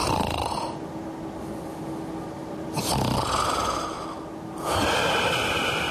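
A sleeping person snoring through several breaths.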